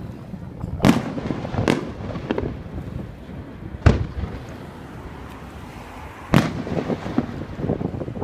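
Aerial fireworks shells bursting: four sharp booms spaced one to three seconds apart, with smaller pops and crackles between them.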